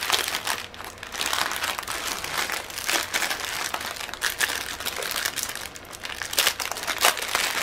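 Small clear plastic baggies of diamond painting drills crinkling as they are handled, a steady run of short crackles.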